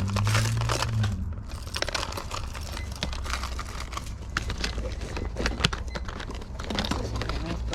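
Crinkling and rustling of items being handled, with many scattered light clicks and taps.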